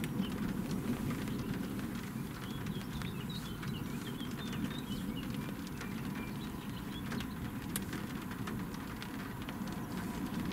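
Scattered raindrops tapping on a car's windscreen and roof, heard from inside the parked car over a steady low rumble. A few faint bird chirps come a few seconds in.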